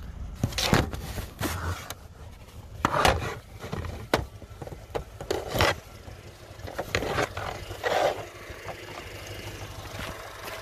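Irregular scraping and rustling bursts with one sharp click, from a handheld camera being jostled about.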